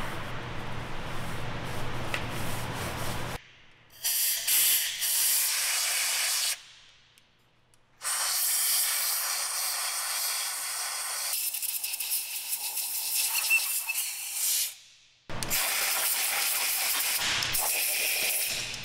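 Compressed-air blow gun hissing in three long blasts, blowing out an engine block's cylinders and bolt holes through a rag, with short quiet gaps between blasts. The first blast starts about three seconds in.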